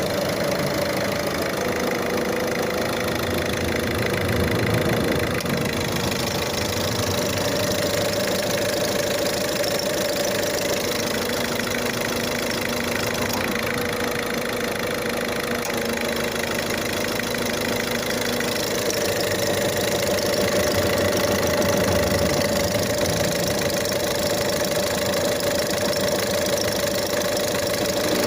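Car engine idling with a steady whine from the alternator, the sign of a bad alternator; the whine steps slightly in pitch a few times.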